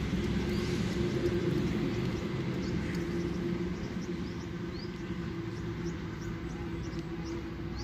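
Small birds chirping in many short, quick rising calls over a steady low hum.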